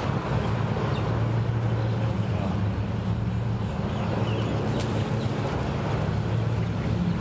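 Pickup truck's engine idling with a steady low hum as it reverses slowly with an empty boat trailer.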